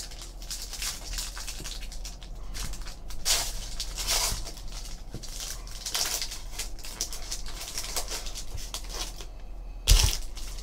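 Foil trading-card pack wrappers crinkling and tearing as packs are opened and handled, with irregular bursts of rustle. A single sharp knock near the end, like something set down on the table.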